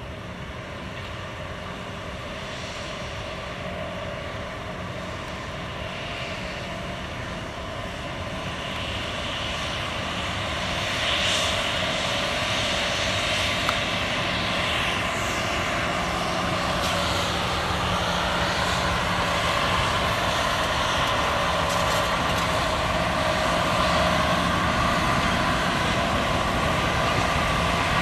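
Small 1955-built diesel shunting locomotive running as it hauls tank wagons past, its engine growing steadily louder, joined by the rolling clatter and hiss of wagon wheels on the rails from about a third of the way in.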